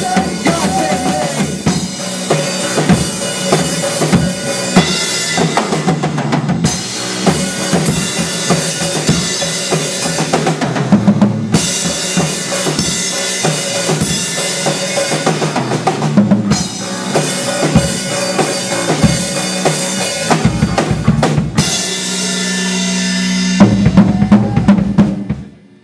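Rock band playing, driven by a drum kit with bass drum and snare. Near the end the band holds one low note, then closes with a last burst of loud hits.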